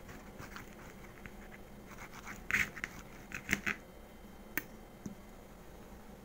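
A knife clicking and scraping against a ceramic plate as a cake is cut through, in a cluster of short sharp strokes about two and a half to four seconds in, with one more click a second later.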